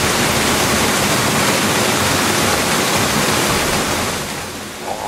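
Loud, steady rush of gushing water, a sound effect for a jet of water being blasted, which fades away a little after four seconds in.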